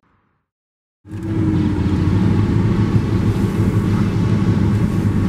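About a second of silence, then the steady running engine and tyre noise of a pickup truck heard from inside the cab while driving.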